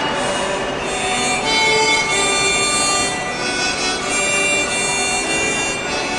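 Harmonica playing a slow tune in sustained notes and chords over a stadium's sound system, as the applause dies away at the start.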